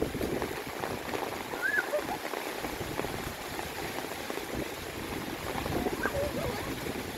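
Heavy rain falling steadily on trees and a wet dirt track, with a few faint short pitched calls in the background.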